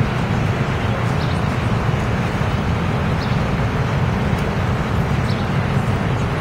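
Steady low rumble of city street noise, with traffic and the general hum of a busy pavement, and a few faint light ticks now and then.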